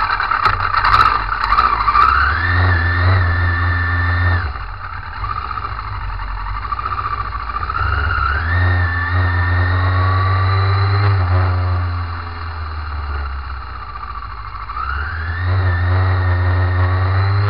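Motorcycle engine pulling away and accelerating three times, its pitch rising and then holding each time, with the engine dropping off sharply about four seconds in and easing off again around twelve seconds.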